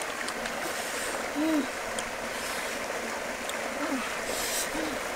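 Steady rush of flowing river water, with three short low hums from a person eating and a few faint clicks.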